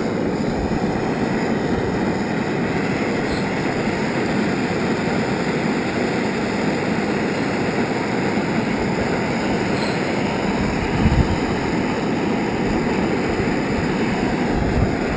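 Small metal-melting furnace running with a steady rushing noise while it heats a crucible charge of Nordic gold bars. Two brief low knocks come about eleven seconds in and near the end.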